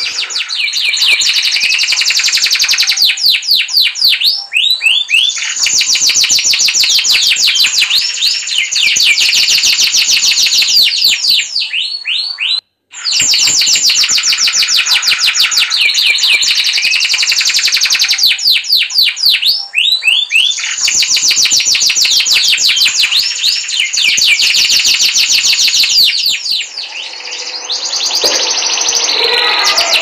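Canary singing a long, loud song of rapid trills and fast repeated notes. The song cuts out abruptly for a moment about halfway through, then carries on.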